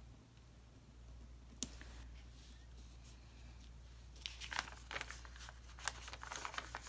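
Paper stickers and planner pages being handled: a single light tap about a second and a half in, then soft paper rustling and crinkling over the last few seconds.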